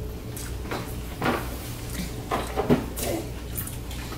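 Cutlery on plates at a meal: a handful of light clicks and knocks of a fork against a plate, spaced irregularly.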